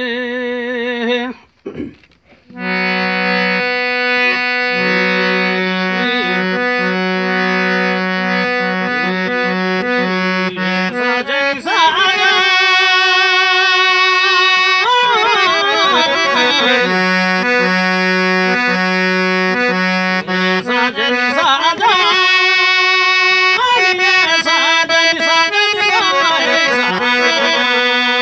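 Free-reed instrument playing a slow melody with wavering, ornamented notes over held low drone notes, after a brief pause about two seconds in.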